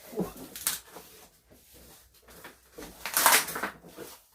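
Cardboard TV box being opened by hand: a few short scrapes and rustles of cardboard, the loudest lasting about half a second near three seconds in.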